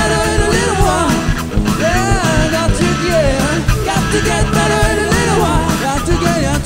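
Live blues-rock band playing: a Les Paul electric guitar over bass guitar and drums, with high notes gliding up and down.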